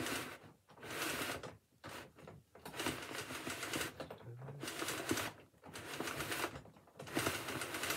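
A tram destination blind being wound by hand through its box: the blind and its rollers make a rattling, rustling run in several spells, with brief pauses between turns.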